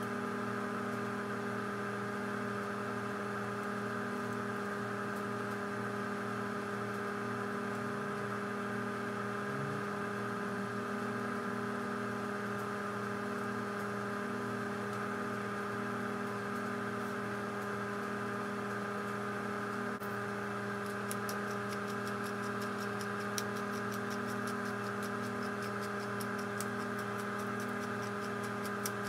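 A steady hum with several fixed tones runs throughout. About twenty seconds in, a hand pepper mill starts grinding over the tray, making a rapid run of fine clicks.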